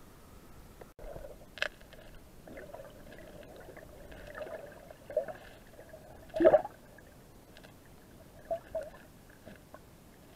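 Muffled underwater gurgling and bubbling around a submerged camera in a river pool, with several sharp splashes or knocks, the loudest about six and a half seconds in.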